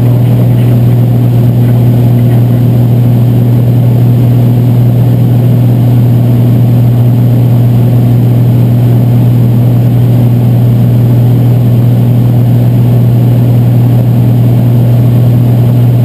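Cessna 206's six-cylinder piston engine and propeller droning steadily in cruise flight, heard from inside the cockpit. A loud, unchanging drone carried by a strong low hum.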